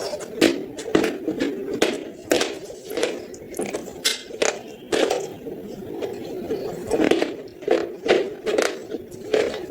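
Close-miked chewing of a mouthful of clay pot, with sharp crunches again and again, roughly twice a second.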